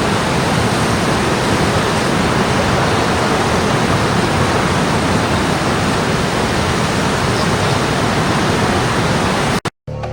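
Waterfall rushing steadily. It cuts off suddenly near the end, and music begins.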